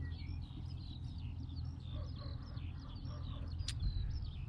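Many small birds chirping and calling, short rising and falling notes one after another, over a steady low rumble; a single sharp click about three-quarters of the way in.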